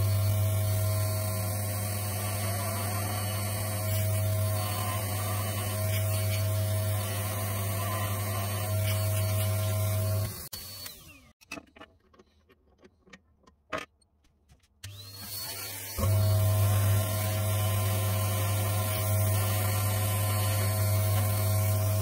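Pillar drill and shop vacuum running together while a 22 mm bit bores into plywood. They wind down about ten seconds in, followed by a few light clicks as the chuck is opened and the bit changed. Both start again about fifteen seconds in to drill the 16 mm clearance hole, louder once the bit bites.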